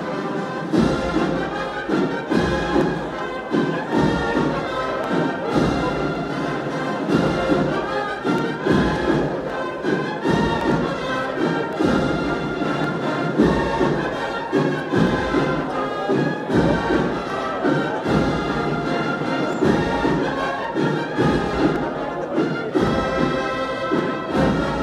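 Brass band playing a processional march over a steady drum beat.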